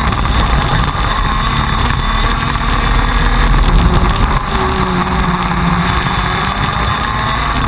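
A KZ2 shifter kart's TM 125 cc two-stroke engine running hard at racing speed, heard from on board the kart.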